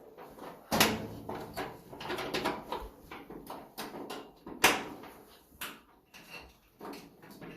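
Clatter and knocks of metal dryer parts being handled and fitted while the drum bearing assembly is put together. There are two sharper knocks, one about a second in and another a little past halfway.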